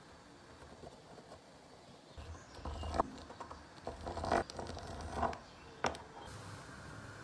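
Fluted pastry wheel rolling through fresh pasta dough on a floured wooden board, cutting ravioli apart: a run of rough scraping strokes with a few sharp clicks, starting about two seconds in and stopping about a second before the end.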